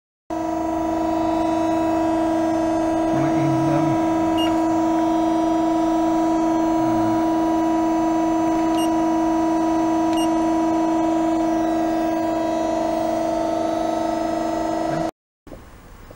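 Amada Promecam hydraulic press brake running with a loud, steady humming whine, with a few faint clicks. The hum cuts off suddenly near the end, leaving quieter workshop noise.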